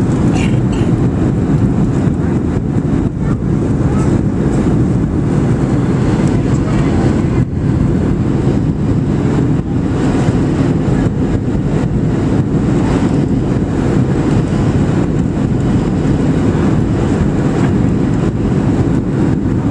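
Steady cabin noise inside a Boeing 737-700 airliner: a constant low rumble of engines and airflow with an even hiss above it.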